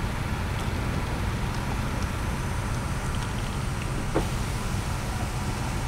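Steady low rumble of a car idling in stopped traffic, heard from inside the cabin, with a brief tick about four seconds in.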